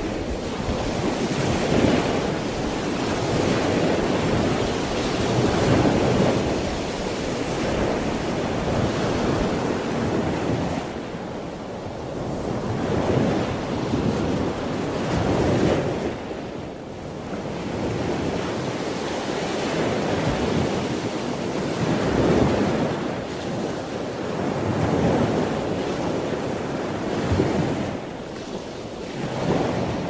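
Ocean surf: waves breaking and washing up a beach in a continuous rush that swells and eases every few seconds.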